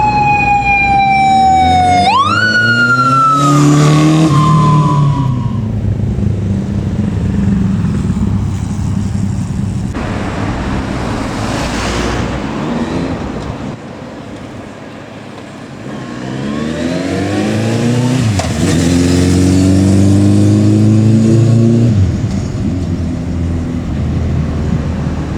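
Police motorcycle siren wailing: its pitch falls, sweeps sharply up about two seconds in, then winds down and stops a few seconds later. Meanwhile the Honda CB1300 police bike's engine accelerates hard, its note rising through the gears. After a quieter spell the engine pulls hard again, rising with gear changes, between about sixteen and twenty-two seconds in.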